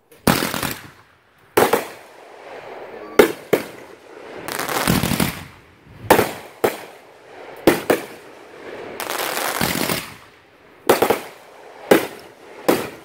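Consumer aerial fireworks going off: about a dozen sharp bangs at uneven spacing as shells launch and burst, with two longer hissing stretches of about a second each.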